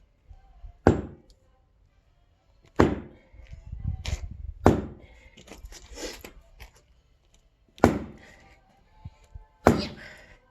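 Axe striking and splitting firewood: five sharp blows, roughly two seconds apart.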